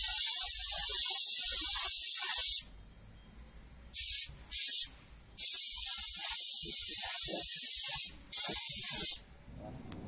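Siphon-cup compressed-air paint spray gun spraying: a loud hiss of air and atomised paint, cut off and restarted with the trigger. A long run of hiss stops, then come two short bursts, a longer burst of about three seconds and a final short one.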